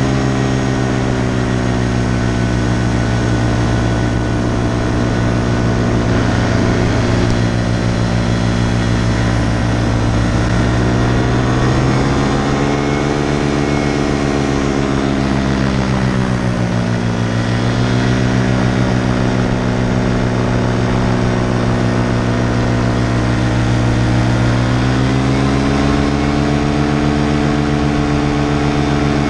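Paramotor engine and propeller running continuously in flight, its pitch rising about eleven seconds in, dipping briefly a few seconds later, then climbing again near the end as the throttle is worked.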